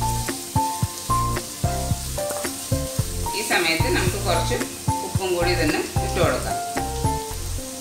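Diced onion and carrot sizzling in hot oil in a wok as a wooden spatula stirs them, under background music with a melody and a steady beat.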